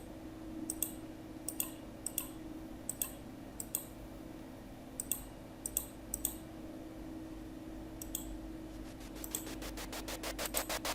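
Computer mouse clicks, about nine single clicks spread over the first eight seconds. Near the end a snare roll starts in FL Studio playback, its strokes fast and growing steadily louder as the build-up rises.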